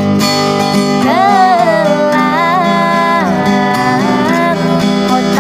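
A high voice singing a slow, ornamented melody over acoustic guitar chords. The guitar starts first and the voice enters about a second in.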